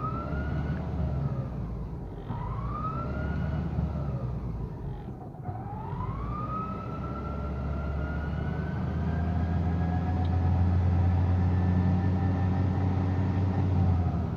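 Renault Sandero gearbox whining in fifth gear, heard from inside the cabin over the engine and road drone. The whine climbs with speed, drops back twice and climbs again, then rises slowly as the drone grows louder. This is the fifth gear growling ('roncando'), the sign of a worn fifth gear pair.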